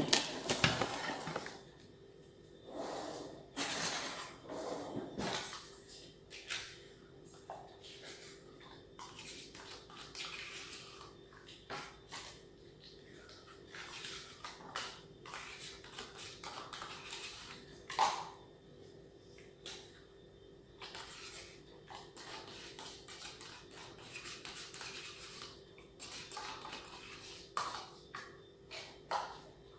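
Kitchen clatter from a metal cooking pot and utensils: a loud clatter at the start as the pot is handled, then scattered clinks, knocks and scrapes, over a faint steady hum.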